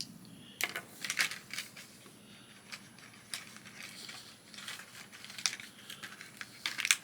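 Light clicks and taps of small plastic toy pieces being handled and set down, coming irregularly, with a quick cluster of clicks near the end.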